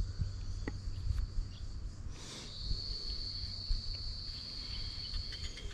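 Insects chirring in one steady high note, over a low rumble on the microphone, with a brief rustle about two seconds in.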